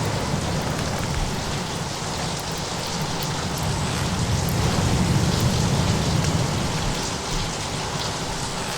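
Storm ambience: steady rain with a low rumble underneath, holding at an even level.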